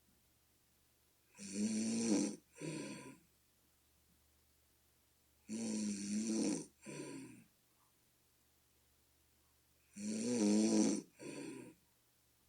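A person snoring in a regular rhythm: three snores about four seconds apart, each a longer rasping snore followed at once by a shorter one. The snorer likens the sound to a bullfrog.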